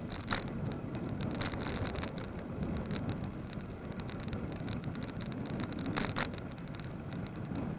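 Ride noise picked up by a bicycle-mounted action camera: a steady low rumble of wind and tyres on the road, with a few sharp rattles from bumps about a third of a second, one and a half seconds and six seconds in.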